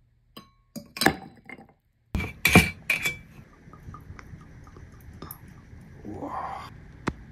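Ice and a tall thin glass clinking: a few light taps, then a burst of sharp glassy clinks between about two and three seconds in. Whiskey is then poured over the ice pillar in a steady trickle, which rises in pitch near the end as the glass fills.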